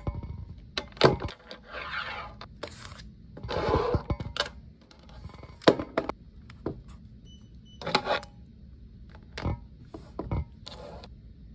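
Office desk being set up: a fabric tote bag set down and rustled, and a laptop and computer mouse placed on the desk and the laptop opened. A string of sharp clicks and knocks, with two longer rustling stretches about two and four seconds in.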